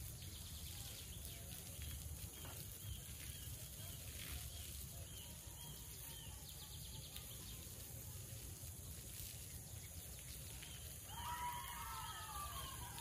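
Birds chirping in repeated short high notes over a steady outdoor background hiss, with a louder, longer call about eleven seconds in.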